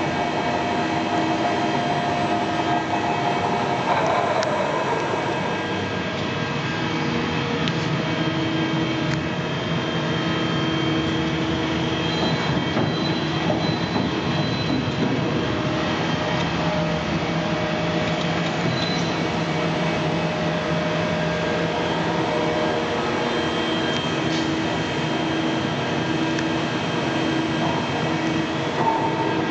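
Large TOS Celakovice SUA 100 CNC lathe running: steady machine noise with several held whines that come and go.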